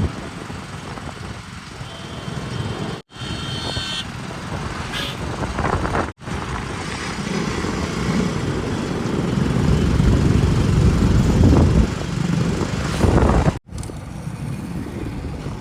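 Diesel engine of heavy earth-moving machinery working, a deep steady running that grows louder in the second half. The sound drops out abruptly three times at edits.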